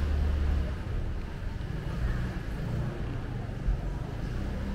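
Low, steady rumble with an indistinct murmur of a crowd standing in a hall, and a short thump a little before the end.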